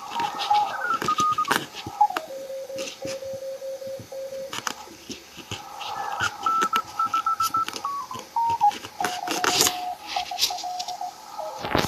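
Amateur radio transceiver in CW mode receiving the 40-metre band: Morse code signals come through as beeping tones that jump up and down in pitch as the dial is tuned, with clicks and crackles throughout. Signals heard on the freshly rebuilt long-wire antenna show that it works.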